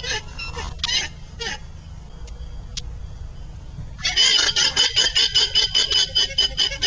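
Llama calling: a few high, pulsed cries at first, a lull, then from about four seconds in a fast run of cries at about five a second.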